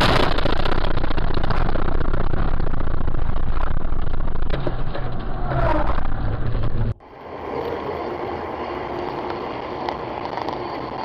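Road and wind noise from a moving car heard through a dashcam, a loud steady rush with a low engine hum. It cuts off abruptly about seven seconds in to a quieter, steady hum of traffic on a busier road.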